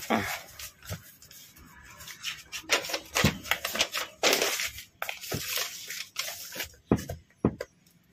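Sheets of paper rustling and crinkling as a stack is handled, turned over and slid flat on a desk, in a string of short, irregular rustles.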